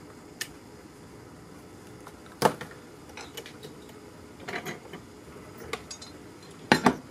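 Handling noises as a soldered wire is pulled free of a metal bench vise and clip holder: scattered clicks and knocks, one sharp about two and a half seconds in, a few more around the middle, and the loudest, a quick double knock, near the end.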